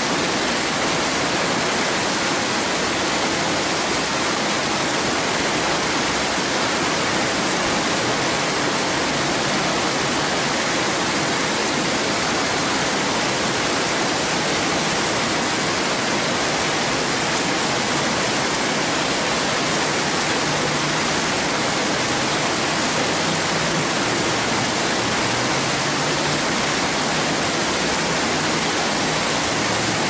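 Steady rush of whitewater rapids: a river churning through large standing waves.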